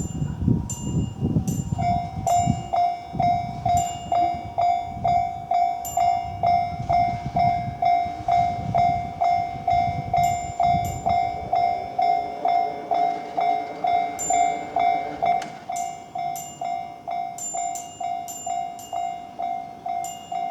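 Japanese railway level-crossing warning bell ringing, a repeating electronic clang about twice a second. In the first seconds a train's low rumble fades out beneath it.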